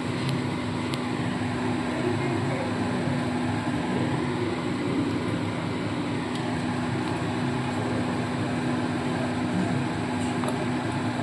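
A steady machine hum with a rushing, fan-like noise, unchanging throughout, with a few faint clicks.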